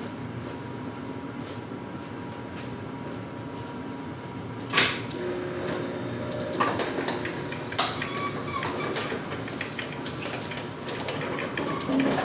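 Sectional garage door hardware: a sharp metal clank about five seconds in, then a rolling rumble with two more clanks, as the door's new rollers run along the steel tracks.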